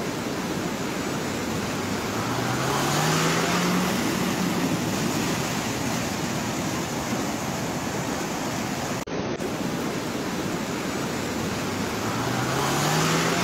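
Heavy rain pouring down steadily, a dense even hiss, with a brief dropout about nine seconds in.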